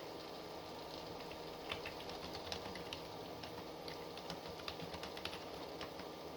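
Typing on a keyboard: irregular runs of key clicks that pick up about a second and a half in, over a steady low background hiss.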